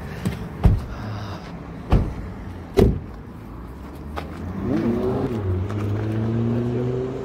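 A few sharp thumps, then a car engine pulling away, its hum rising slowly in pitch through the second half.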